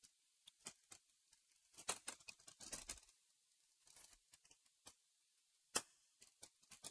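Faint scattered plastic clicks and crackles from a laptop's display lid and bezel being handled and pried, with a denser run of crackling about two seconds in and a sharper click near the end.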